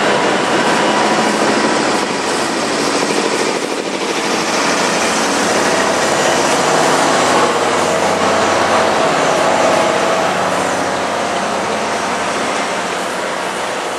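Carriages of the Hokutosei sleeper train rolling past close by as it pulls out: a loud, steady noise of wheels on rails and running gear, easing slightly near the end.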